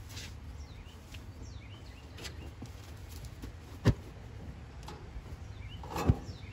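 Two sharp thumps, about two seconds apart, as a cloth shirt is slapped down onto a burning Carter AFB four-barrel carburetor to smother a carb fire, over a steady low rumble.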